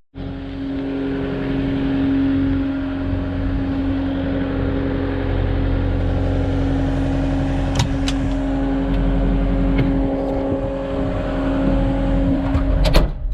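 Truck driving: a steady engine hum over low road rumble, with a sharp click about two-thirds of the way in and a couple more near the end.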